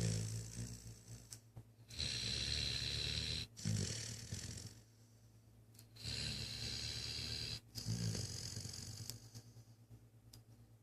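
Snoring in slow breath cycles: two long loud snores, each lasting about a second and a half and arriving about four seconds apart, with softer breathing between them. It fades to quiet breathing near the end.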